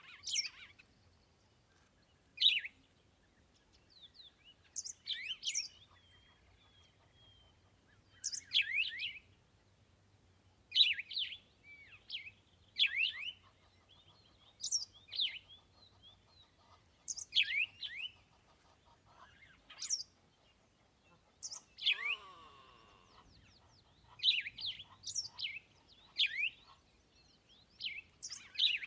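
Birds chirping: short, sharp calls that sweep down in pitch, coming in clusters every second or two.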